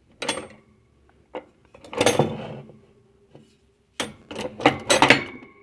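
Loose metal hand tools clinking and clattering as they are handled and set down in a toolbox. There are scattered knocks, a longer rattle about two seconds in, and a quick run of clanks near the end that leaves a brief metallic ring.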